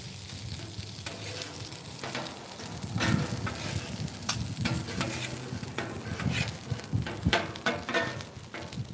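Fried rice and egg sizzling on a flat-top griddle while two metal spatulas scrape, chop and toss it. The spatula blades give irregular clinks and scrapes against the griddle top, busier from about three seconds in.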